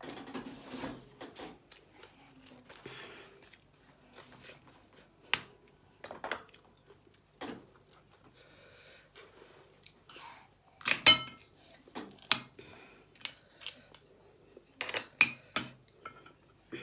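Shellfish shells clicking and clattering against plates and each other as they are picked apart by hand, with quiet chewing between. The sharpest flurry of clinks comes just past the middle, and another comes near the end.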